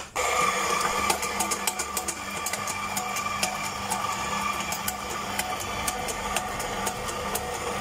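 Electric drink blender switching on suddenly and running steadily, its motor whining, with many sharp clicks of ice hitting the jar as a blended frappe-style drink is made.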